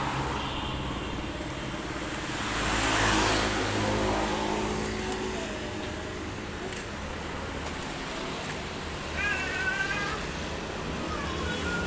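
A young child's short high-pitched whimper, wavering in pitch, about nine seconds in, with a fainter one near the end. A steady low background rumble runs underneath.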